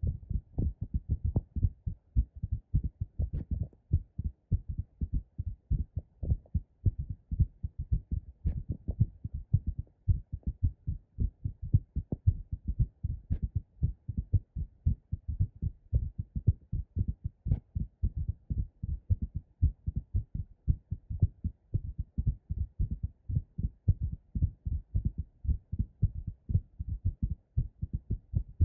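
Two recordings of a woman's heartbeat playing at once, one in each ear. On the left is a fast, pounding heartbeat after squats; on the right is a heartbeat recorded while she holds her breath under pressure. Together they make a dense, overlapping run of low thumps, with a few faint clicks.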